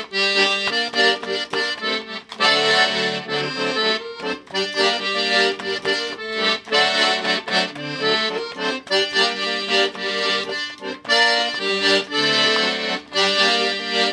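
Accordion playing an instrumental interlude of a hymn tune, melody over held chords, in phrases without singing.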